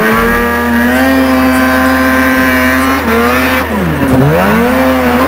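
Snowmobile engine running hard under throttle: its pitch climbs and holds steady, then drops and climbs again about four seconds in as the rider lets off and reapplies throttle.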